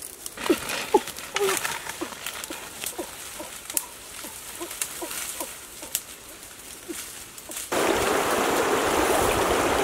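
Rustling and snapping of dry stalks and undergrowth as people and dogs move through it, with a few short squeaky calls. About eight seconds in, this cuts to a shallow stream rushing steadily over stones.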